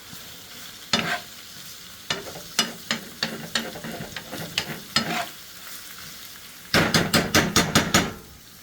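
Sautéed chicken, garlic, onion and celery sizzling in a frying pan while a utensil stirs it, with scattered clicks of the utensil against the pan and a quick run of clatters near the end.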